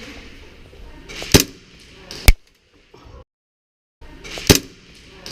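Airsoft gun firing in an indoor arena: two sharp cracks about a second apart, a sudden cut to silence, then the same pair of cracks again.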